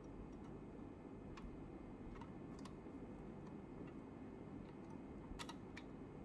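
Scattered light clicks from the Maisto 1/18 scale diecast Shelby GT500 model as a fingertip works at the front edge of its hood, over a steady low room hum.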